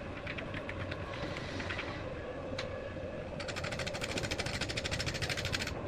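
Angle grinder running steadily with a sanding attachment. About three and a half seconds in a fast, even clicking starts over the motor's steady tone and stops near the end.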